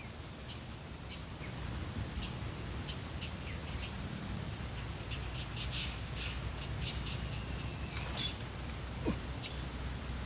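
Steady, high-pitched chorus of insects, with faint scattered ticks. A single short, sharp click about eight seconds in.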